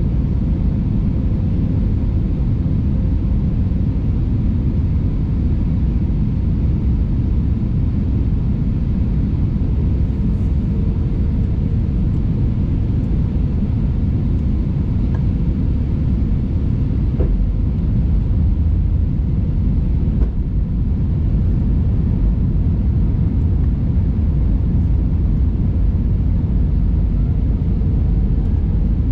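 Steady low rumble inside the passenger cabin of an Airbus A320-family airliner on approach with its flaps extending: engine and airflow noise with a faint steady hum.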